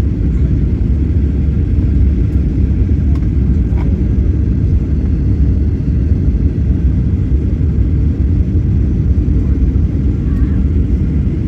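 Steady low rumble of an airliner cabin on the ground after landing, with no change in pitch or level.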